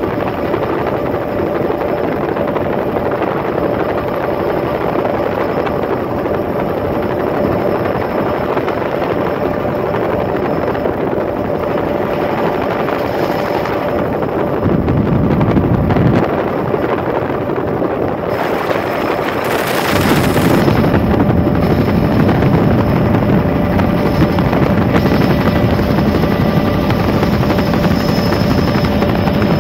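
Bell OH-58 helicopter in flight: steady turbine and rotor noise with a constant whine. It grows louder and heavier about two-thirds through, just after a brief high hiss.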